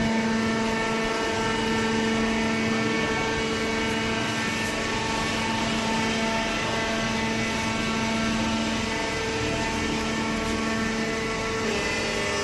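Hydraulic waste-paper baler running, its pump and motor giving a steady machine hum with several tones, which shift slightly near the end.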